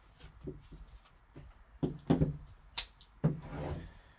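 Gloved hands handling a shrink-wrapped trading-card box and cards on a table: a few sharp taps and knocks in the second half, then a brief rustle.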